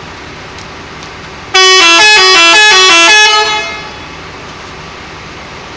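Telolet musical bus horn playing a quick tune of short notes stepping up and down in pitch, loud for nearly two seconds, then cutting off with a short fading echo. A steady low hum sits beneath it.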